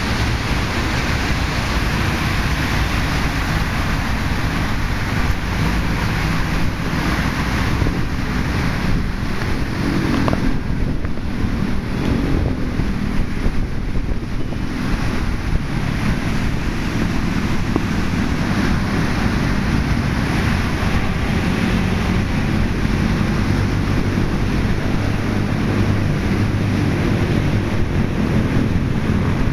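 Storm wind buffeting the microphone with a steady low rumble, over choppy sea waves washing onto a rubble shore.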